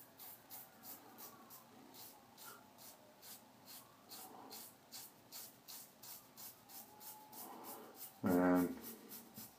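Merkur 34C double-edge safety razor scraping through lather and stubble in short rapid strokes, about three or four a second. About eight seconds in, a short pitched tone, the loudest thing here, cuts through the scraping.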